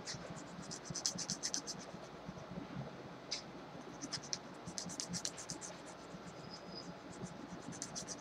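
Metal nail file rasping across a fingernail in quick runs of short strokes, with brief pauses between the runs.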